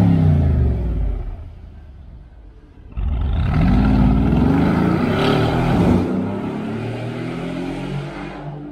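Mercedes-AMG G63's twin-turbo V8 through a valvetronic catback exhaust: the engine note falls away and quietens. About three seconds in it accelerates hard with a loud, rising note, shifts up once, and fades as the SUV drives off.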